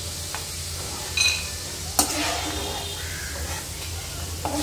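Chopped nuts sizzling in hot ghee in a frying pan while a steel slotted spoon scoops them out, with metal clinks of the spoon: a short ringing clink about a second in and sharp taps at two seconds and near the end.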